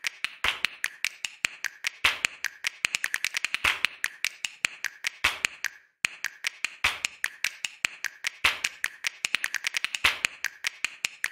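A rapid, uneven run of sharp clicks and taps, several a second, with a brief pause near the middle and another about a second before the end.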